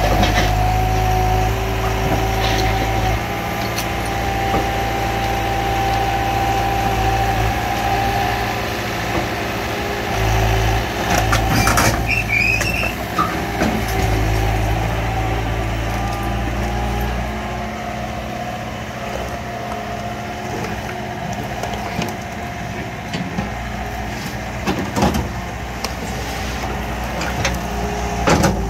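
Komatsu skid steer's diesel engine running under shifting load as its grapple tears into an old camper. Sharp crashes and crunches of the camper breaking come loudest about twelve seconds in and again near twenty-five seconds.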